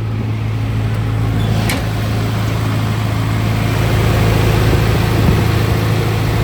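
John Deere 245G LC excavator's Isuzu diesel engine running steadily, heard up close at the engine bay, growing slightly louder past the middle, with one sharp click about two seconds in. The seller judges it running clean with no blow-by.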